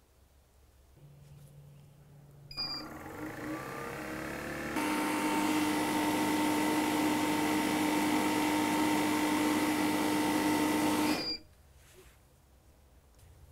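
Hilmor brushless DC refrigerant recovery machine starting with a short beep, its motor rising in pitch for about two seconds, then running loud and steady with a whine. It cuts off suddenly with another beep near the end. This is a further recovery pass to pull the old mini split's refrigerant down below 0 PSI.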